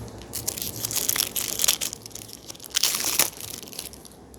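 Crinkling and crumpling of a trading-card pack wrapper being handled and torn open, in two bouts, the second one short.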